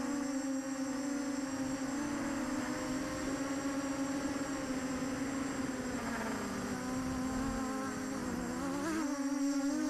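Buzzing whine of a ZMR-250 FPV quadcopter's four Sunnysky X2204S 2300KV brushless motors and 5-inch Gemfan props in flight, picked up by the camera on board. The pitch wavers with throttle, sagging lower about seven seconds in and climbing sharply again near nine seconds.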